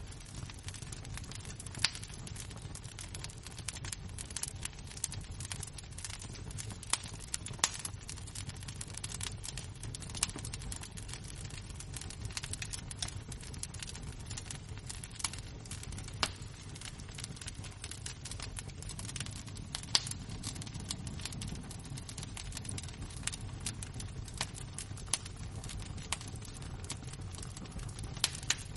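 Burning embers crackling, with irregular sharp pops and snaps over a steady low rumble.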